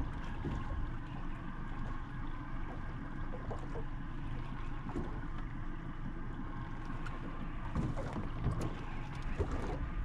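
Boat motor running steadily at trolling speed, a constant low hum with a steady whine over it.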